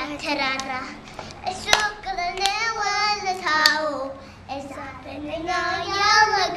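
Two young girls singing an Ethiopian Orthodox hymn (mezmur) together, with a few sharp hand claps through the song.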